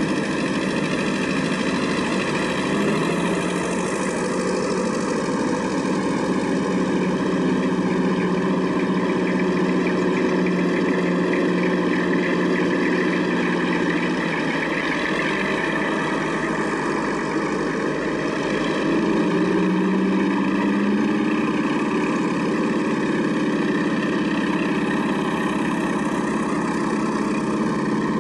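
Several vintage tractor engines running as a line of tractors drives slowly past, the engine note shifting as each one goes by and rising near the end as another tractor approaches.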